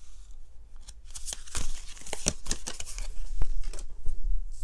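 A deck of oracle cards being shuffled and handled: a run of short papery slaps and swishes, then a card laid down.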